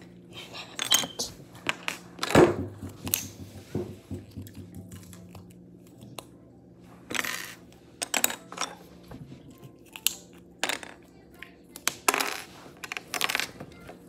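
Wooden clothespins clicking and clattering against each other and the tabletop as they are picked up and fitted together: a string of irregular sharp clicks, with a louder knock about two and a half seconds in and a few short scraping rustles.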